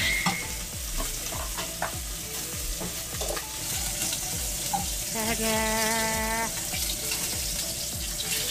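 Steady sizzle of hot fat frying, from butter-seared beef sirloin just off the heat. About five seconds in, a single pitched note is held for just over a second.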